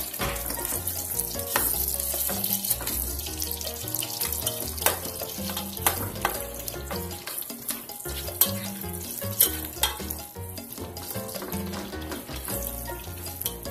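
Sliced onions and garlic sizzling as they fry in hot oil in a pot, stirred with a plastic slotted spoon that clicks and scrapes against the pot now and then.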